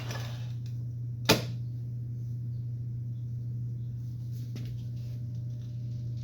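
A single sharp click about a second in, over a steady low hum, with a couple of faint ticks later on, from handling the chop saw while setting its angle.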